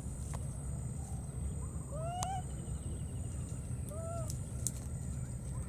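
Baby macaque giving short, arched coo calls, rising then falling in pitch, about two seconds apart: the soft distress cries of a wet infant.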